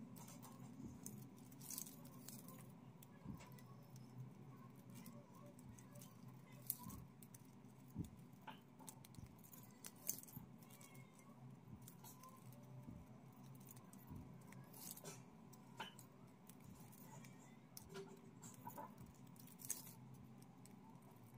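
Faint, scattered clicks and rustles of stiff plastic wire strips being handled, pulled and tightened while weaving a bag handle, with metal bangles clinking now and then on the wrists. A few of the clicks stand out, louder than the rest.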